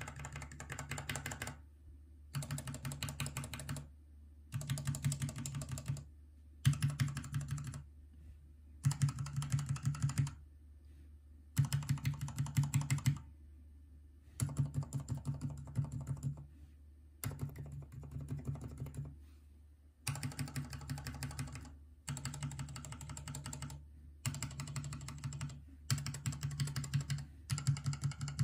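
Mechanical keyboard switches on a switch tester being pressed rapidly in short bursts of clacks, one switch after another. They are mostly linear black and red types: Cherry MX Black, Gateron Black, Cherry MX RGB Black, Cherry MX Silent Black and Cherry MX Red. A faint steady low hum runs underneath.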